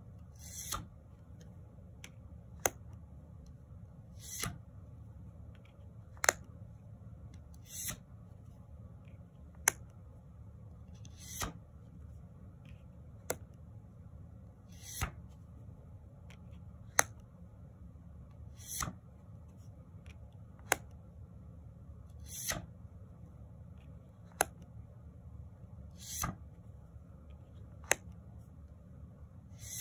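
Tarot cards handled one at a time. Each card gives a soft swish as it slides across the deck and a sharp snap of card stock, the two alternating evenly, about one card every three to four seconds, over a low steady room hum.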